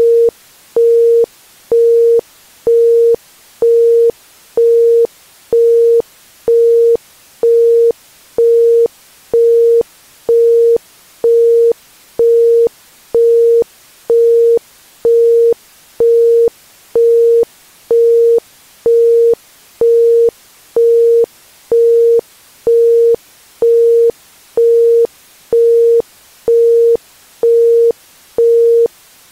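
Isochronic tone: a pure 465 Hz tone pulsing fully on and off about once a second (1.05 Hz), each beep cleanly separated by a gap.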